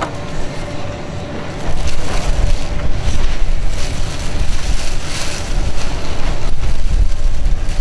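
Wind buffeting the microphone: a loud, low rumble that jumps up about two seconds in and keeps on.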